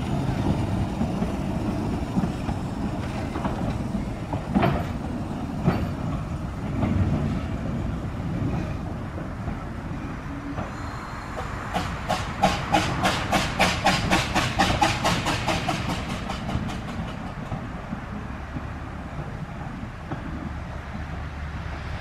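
Narrow-gauge steam locomotive Southern E762 "Lyn" moving off with its carriages, a low running rumble throughout. Two sharp knocks come about five and six seconds in. About halfway through, a rapid even beat of roughly four to five strokes a second starts and dies away over about five seconds.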